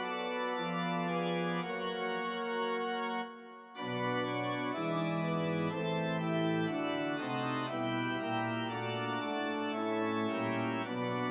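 Organ music playing held chords that change about once a second, breaking off for a moment about three seconds in.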